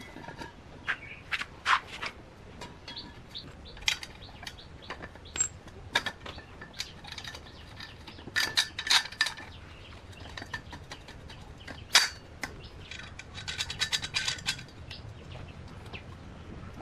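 Scattered light metal clinks and taps of bolts, washers and steel square tubing being handled and fitted together. Some clinks ring briefly, with a quick run of them about halfway through and another near the end.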